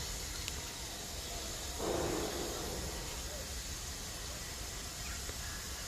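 Steady hiss of a miniature steam locomotive standing at a distance and venting steam, with a brief lower sound about two seconds in.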